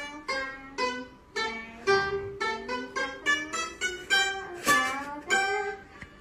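Pipa (Chinese lute) being plucked, picking out a melody of single notes at about two notes a second, each note starting sharply and fading.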